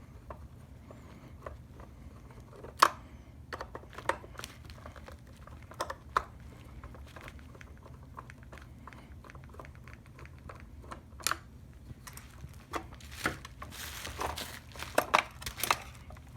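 Scattered small clicks and knocks of a screwdriver working on the plastic housing of a car side-mirror assembly while three screws are backed out, with a denser run of crackling, rustling handling noise near the end.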